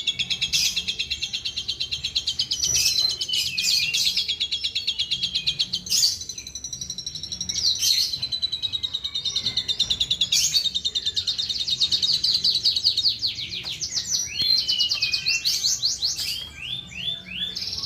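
Asian pied starling (jalak suren) singing a near-continuous, fast chatter of high repeated chirps and trills, mimicking the calls of other bird species, with a few sharp clicks.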